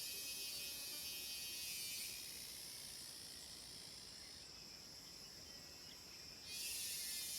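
Cicadas calling in a shrill, high chorus that eases off about two seconds in and swells back loud near the end, over a steady high insect drone.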